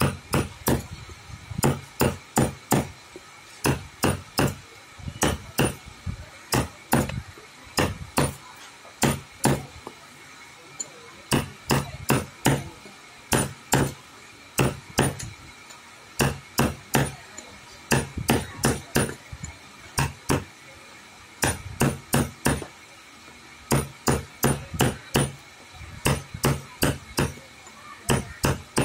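Hammer striking repeatedly in quick runs of about three to five blows, with short pauses between runs, during woodwork.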